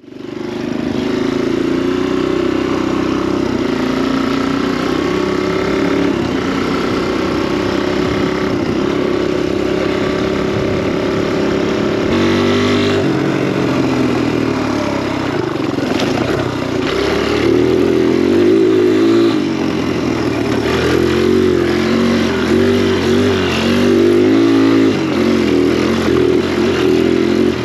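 Kawasaki KLX dirt bike's four-stroke single-cylinder engine running continuously while ridden, its pitch rising and falling as the throttle opens and closes. There is a clear change in engine note about halfway through.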